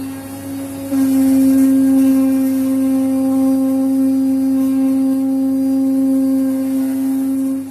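CNC vibrating-knife fabric cutter running: a steady, loud pitched hum with overtones from the oscillating blade, stepping up in loudness about a second in.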